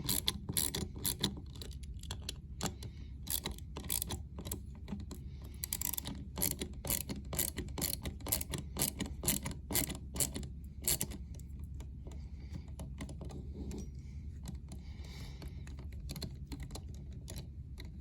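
Leatherman ratchet driver clicking in irregular runs of quick clicks as it turns small screws, thinning out to scattered clicks after about eleven seconds.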